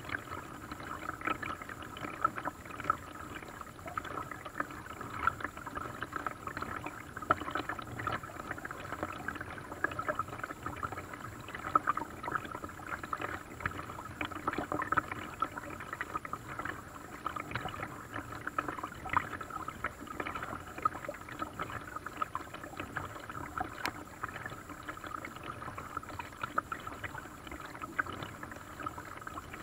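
Water splashing and lapping against the hull of a small paddled boat on a lake, with many small irregular splashes and knocks over a steady wash of water.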